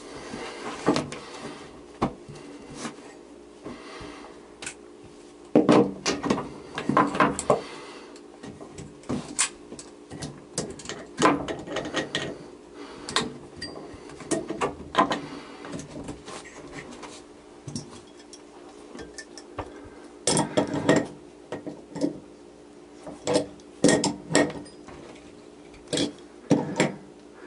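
Pliers and an adjustable wrench clicking, knocking and scraping on a metal shutoff valve as it is tightened onto a copper water line, in irregular clusters of sharp clicks over a steady low hum.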